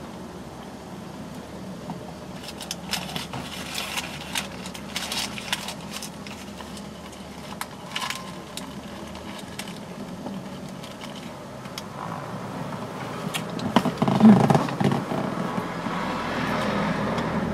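Paper wrapper of a shawarma crinkling in scattered bursts as it is handled and bitten into, over the steady low hum of a car cabin, with a louder burst about fourteen seconds in.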